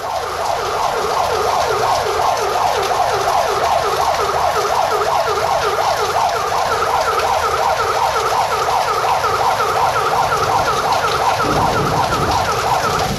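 Fire engine siren sounding a fast repeating wail, about three sweeps a second, over heavy rain.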